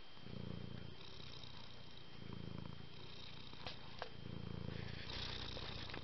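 Domestic cat purring close up: a low rumble that swells for about a second, roughly every two seconds, with a softer breathy phase in between.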